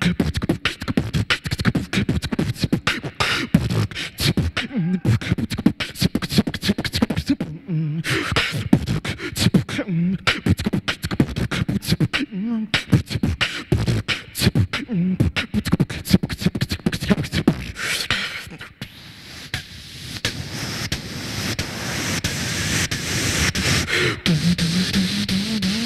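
Solo beatboxing into a handheld microphone: fast, rhythmic vocal kick, snare and click sounds with short low hums. About two-thirds of the way through, the beat gives way to a steady hiss that builds toward the end.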